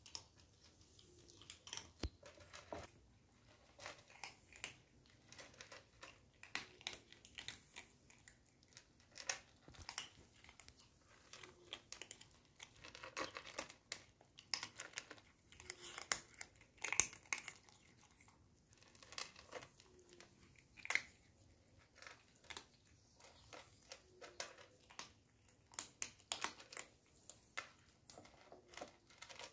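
Two kittens eating dry kibble: irregular short crunches and clicks as they chew the hard pieces.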